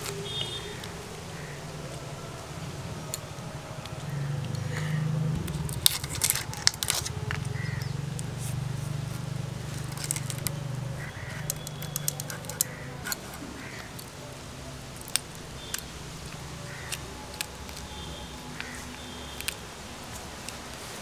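Giant freshwater prawns being cut by hand: scattered sharp clicks and snips of the blade through the shells, thickest about six seconds in, over a low steady hum.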